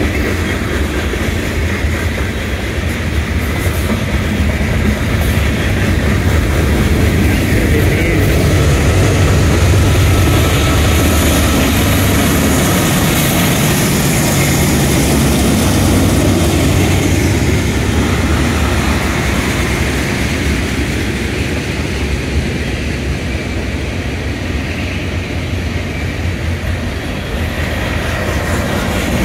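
Norfolk Southern manifest freight train rolling past: a steady rumble and rattle of freight cars on the rails. A mid-train diesel locomotive goes by in the middle, and its low engine sound swells and then fades as it passes.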